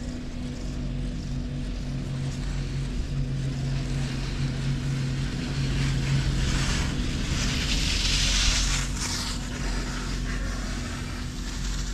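A steady low mechanical hum, with a swell of hissing noise for a few seconds in the middle.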